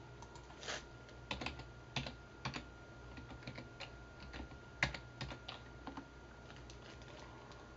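Computer keyboard being typed on: an irregular run of keystrokes that stops about six seconds in.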